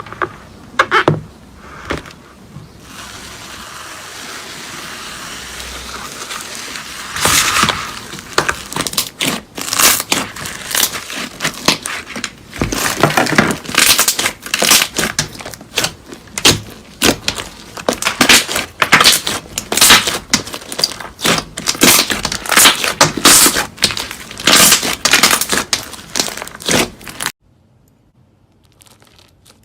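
Slime being squeezed and worked by hand, making rapid, irregular crackling and popping. A soft hiss builds for a few seconds before the crackling starts, and it cuts off suddenly near the end.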